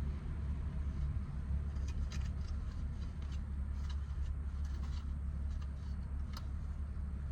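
Light clicks and rustling as a shift boot and plastic console trim are handled and pushed into place, over a steady low rumble.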